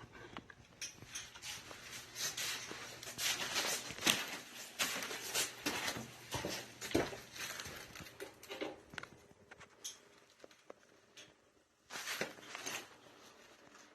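Irregular scuffing and rustling with light clicks, over a faint steady low hum.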